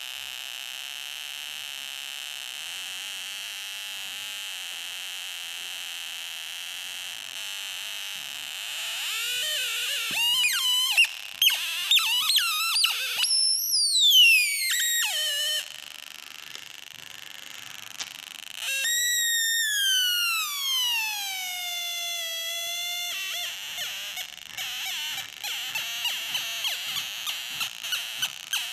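Drawdio pencil synthesizer buzzing an electronic tone from its small speaker, its pitch set by the resistance of the graphite line being drawn. It holds a steady buzz at first, then jumps about in pitch. About halfway through it swoops down in a long falling glide, and it breaks into short choppy tones near the end.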